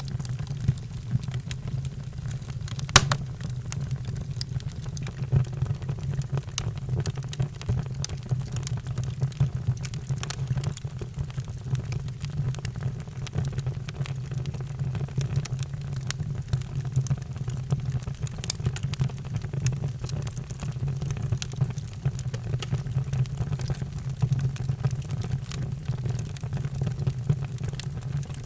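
Wood fire crackling in a fireplace: a steady low rumble of flames with scattered sharp pops and snaps, one louder pop about three seconds in.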